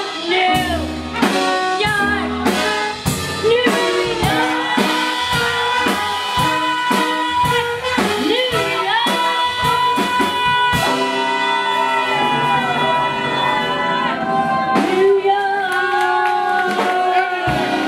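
Live band playing: a woman singing over saxophone, trumpet, trombone and drum kit. A steady beat runs for about the first ten seconds, then the band holds long notes to close.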